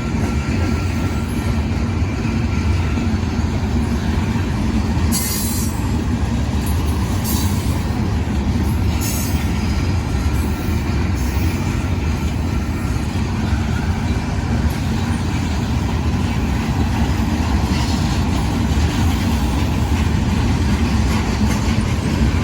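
A loaded Union Pacific rock train rolling by as it gets under way: a steady heavy rumble of wheels on rail, with a few short high-pitched screeches now and then.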